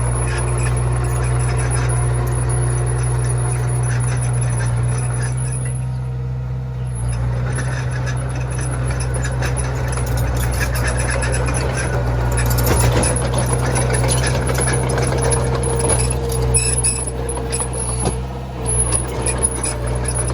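Mini Komatsu bulldozer's diesel engine running steadily under work, with scattered metallic knocks and rattles, most of them in the second half.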